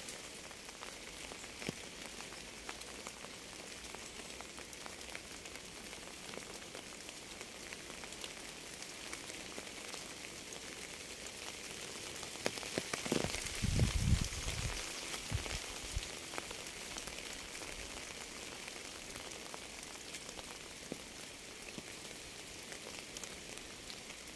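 Steady rain falling on a surface: an even hiss with a dense patter of separate drops. About halfway through, a low rumble rises briefly over it for a second or two.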